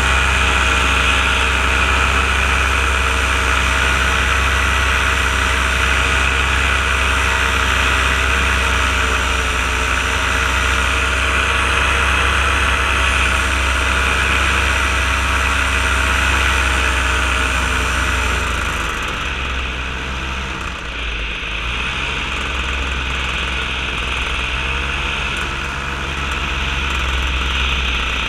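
Paramotor engine and propeller running steadily in flight. The throttle eases off about two-thirds of the way through, then picks up again near the end.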